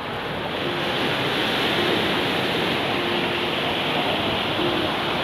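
Sea surf breaking and washing up a sandy beach: a steady rush that swells about a second in and then holds.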